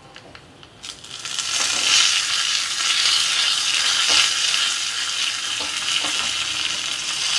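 Fresh curry leaves hitting hot oil in a small tempering pan with dried red chillies, spluttering and sizzling: the tempering (tadka) stage. The sizzle starts suddenly about a second in and goes on steadily, with a few pops.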